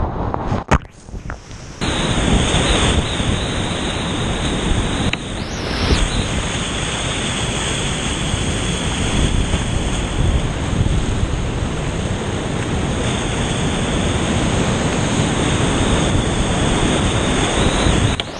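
Whitewater rapids rushing loudly around a kayak, picked up close by a camera on the boat, with splashing. About a second in, the sound breaks up and dips briefly before the steady rush resumes.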